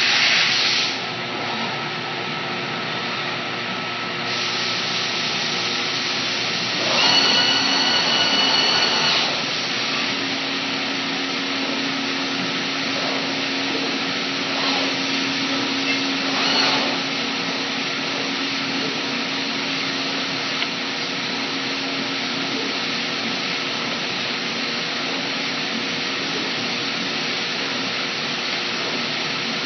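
Komo VR510 CNC router running, a steady rushing machine noise. About seven seconds in it grows louder for two seconds with a high whine, and from about ten seconds a low hum runs under the noise, with two brief swells a little later.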